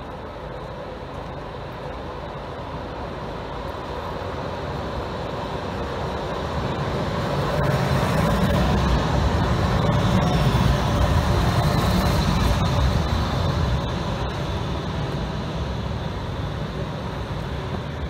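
Zagreb ZET low-floor electric tram passing on street rails: its rolling noise grows louder, peaks as it goes by about eight to twelve seconds in, then fades away.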